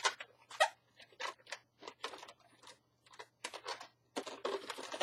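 Latex twisting balloons being handled, tucked and twisted by hand: a string of short, irregular squeaks and rubs.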